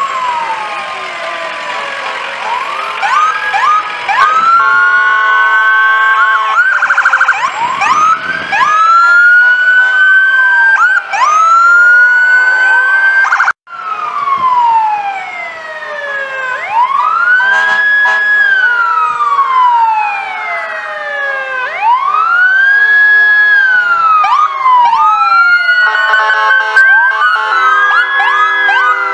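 Emergency-vehicle sirens wailing, several at once, each sweeping up, holding and falling over a few seconds, with steady horn blasts near the start and again near the end. The sound breaks off for an instant about halfway through, after which one siren wails on more slowly.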